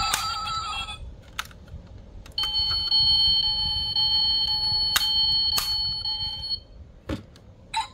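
Sound chip in a 1:24 diecast Porsche Cayenne model car playing a steady, shrill electronic alarm-like tone for about four seconds, after a brief warbling tone at the start. Light plastic clicks of the model's doors and hatch being handled come a few times.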